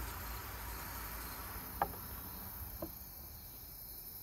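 Steady high-pitched insect chorus of crickets trilling in late-summer woods, with a sharp click about two seconds in and a softer one a second later.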